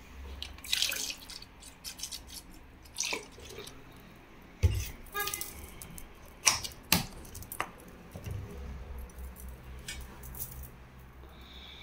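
A plastic floor-cleaner bottle and plastic mop bucket being handled: scattered light clicks and knocks, with sharper knocks about four and a half and seven seconds in, over a faint low hum.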